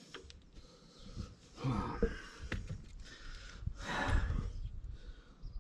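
A man's heavy breaths and effortful grunts, with a couple of sharp metallic clicks in between.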